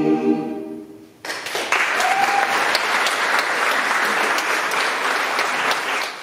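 An a cappella choir's final sustained chord fades out about a second in. The audience then breaks into applause that runs steadily and begins to die away at the very end.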